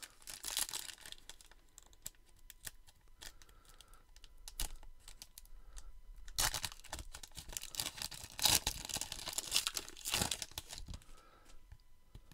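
Trading-card pack wrapper being torn open and crinkled by hand, in uneven rustling bursts, loudest about halfway in and again shortly after.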